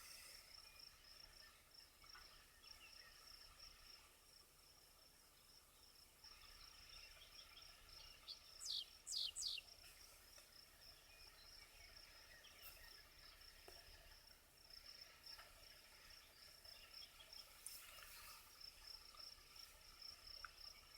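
Near silence with a faint, steady, high insect trill, typical of a cricket. About eight and a half seconds in comes a quick run of a few short, falling bird chirps.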